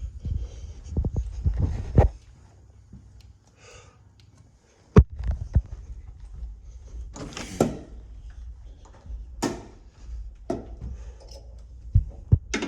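A hallway fire door being handled: several irregular thuds and clicks of the door and its latch, over a low steady hum. The door will not stay open or reset while the fire alarm is active.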